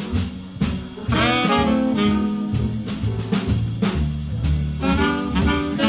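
Jazz big band playing a swinging blues: the saxophone section plays a melodic line over upright bass, drums with cymbals, and jazz guitar.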